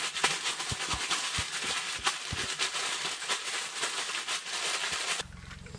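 Plastic zip-top bag crinkling and rustling as fish fillets are shaken in a flour-and-spice breading mix, with many sharp crackles. About five seconds in it cuts off abruptly to the steady low hiss of a propane camp-stove burner.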